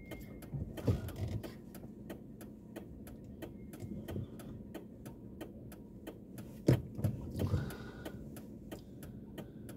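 A car's turn indicator ticking steadily inside the cabin, about three ticks a second, with a low thud about seven seconds in.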